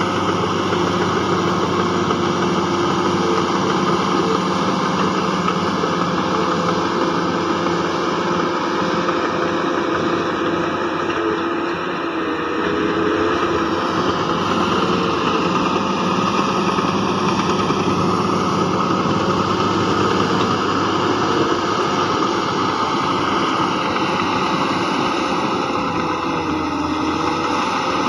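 Heavy earthmoving machinery's diesel engine running steadily, its pitch shifting slightly now and then.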